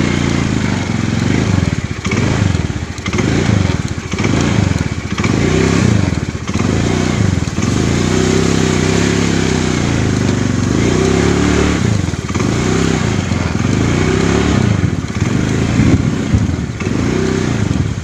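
Small motorcycle engine being ridden over a muddy dirt trail, its revs rising and falling every second or so as the throttle is opened and eased, with a steadier stretch in the middle.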